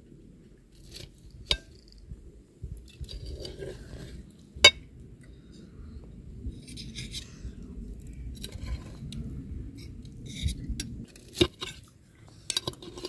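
Slotted metal spatula scraping and clinking against a glass serving dish and glass plates while rice is cut and lifted out, with scattered sharp clinks, the loudest a little under five seconds in and several more near the end.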